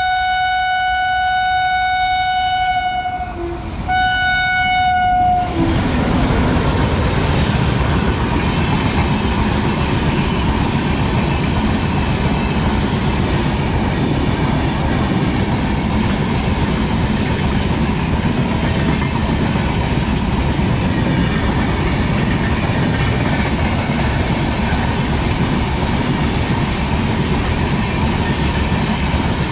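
Train horn sounding two blasts, a long one and then a short one about a second later. Then the train running by, its wheels rumbling and clattering steadily on the rails.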